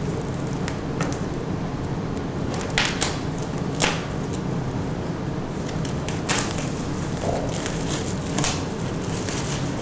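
Paperback books being handled and set down on a glass tabletop beside crumpled kraft packing paper: about half a dozen short, sharp knocks and rustles over a steady low hum.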